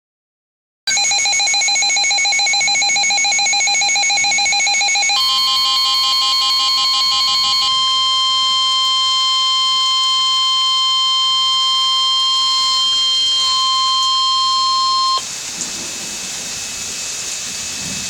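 Emergency Alert System tones: about four seconds of rapid, buzzy digital data chirps (the coded alert header), then a single steady, piercing attention tone held for about ten seconds. The tone cuts off suddenly, leaving faint radio hiss.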